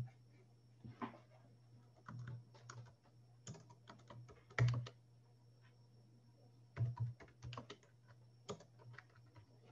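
Computer keyboard typing: irregular keystrokes in small clusters, a few louder than the rest, over a faint steady low hum.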